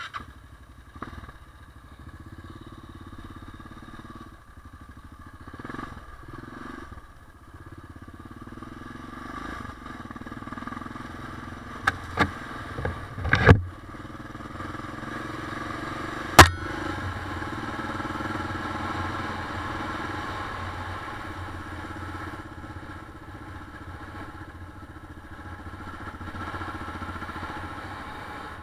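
Motorcycle engine running steadily while the bike is ridden along a dirt track, with a few sharp knocks between about twelve and sixteen seconds in, the loudest near the middle.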